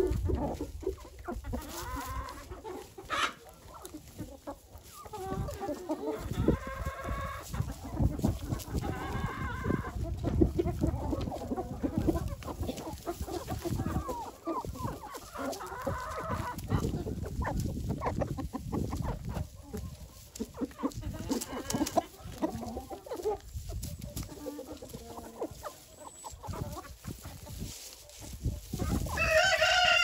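Domestic chickens clucking and calling while feeding on scattered hay, with one louder, longer call near the end.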